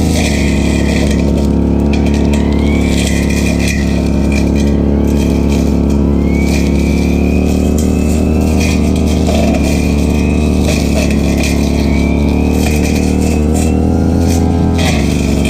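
Stihl FR3001 backpack brushcutter engine running steadily at cutting speed, with a wavering higher whine over the engine note as it cuts grass.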